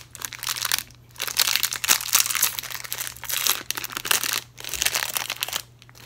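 A plastic snack packet of Chokis cookies crinkling as it is handled and opened, in several bursts separated by short pauses.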